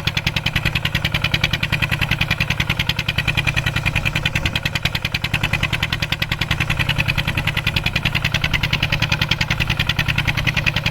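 Mini farm tractor's engine running steadily while plowing, with an even, fast pulsing beat.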